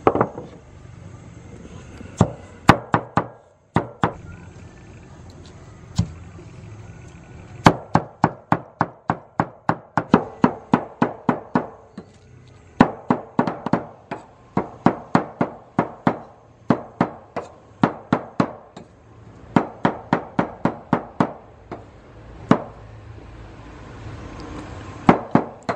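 Cleaver chopping on a round wooden chopping board, mincing chopped herbs and chilli with grated coconut: runs of quick, sharp chops, about five a second, broken by short pauses.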